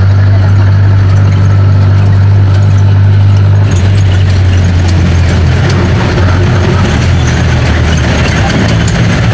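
A passenger jeepney's diesel engine running steadily under way, heard from inside the open-sided passenger cabin, with a loud low hum and road and traffic noise.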